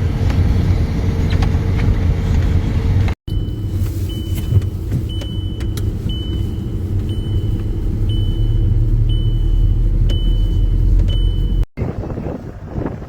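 A motor vehicle's engine running with a steady low rumble. Partway through, a short high-pitched electronic beep starts repeating about once a second.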